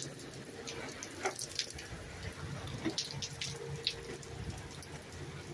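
Steady rain falling and splashing on wet pavement, with scattered single drops landing close by as sharp ticks.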